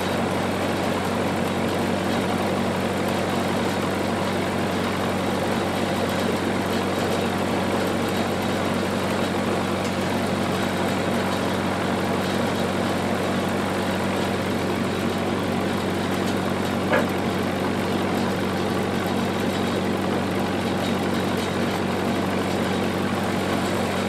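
Engine-driven generator running steadily at constant speed, a low, even hum with no change in load. Once, about two-thirds of the way through, a brief higher-pitched sound rises above it.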